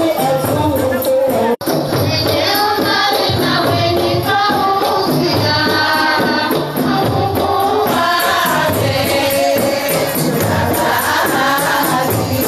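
Group of women singing a traditional Comorian tari wedding song together over a steady hand-percussion beat. The sound cuts out for an instant about a second and a half in.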